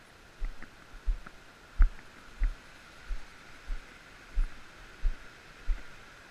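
Footsteps on a wooden treehouse floor: about nine dull thuds at a steady walking pace, some with a light click.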